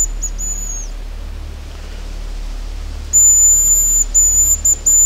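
Hazel grouse decoy call whistled in the bird's song: very high, thin whistles, each phrase a long held note followed by a few short ones. One phrase ends within the first second and another starts about three seconds in. Wind rumbles on the microphone.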